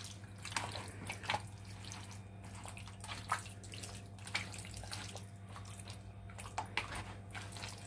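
A gloved hand mixing ginger-garlic paste into marinated beef pieces in a plastic bowl: soft, wet squelches and light clicks at irregular intervals over a steady low hum.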